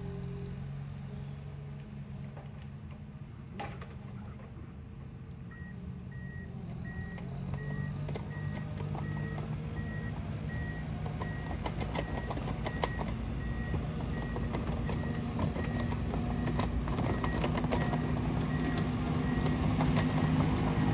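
Ponsse forwarder's diesel engine running as the machine drives closer, growing steadily louder, with scattered knocks and clanks from the bogie tracks and load. From about five seconds in a reversing alarm beeps at a steady, even rate.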